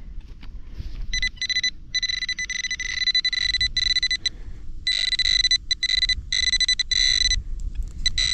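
Metal detecting pinpointer sounding a steady high-pitched tone that switches on and off in stretches, starting about a second in: it is close over a buried coin in the soil.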